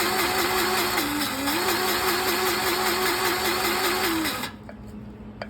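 DeWalt cordless power grease gun running, its motor whining steadily as it pumps grease into a cylinder pivot's grease fitting; it stops about four seconds in.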